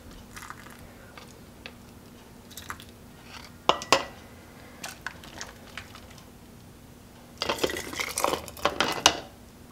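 Kitchen utensils clinking on glass mason jars as a ladle and canning funnel are moved between them, with a couple of sharp knocks about four seconds in. Near the end, stew is ladled through the funnel into a jar in a quick run of wet splashes and clatter.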